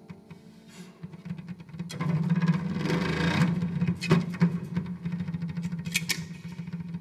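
Free-improvised experimental music on horn and homemade percussion instruments. A steady low drone runs under rapid fine ticking, then a noisy rushing swell builds about two seconds in, with sharp strikes about four and six seconds in.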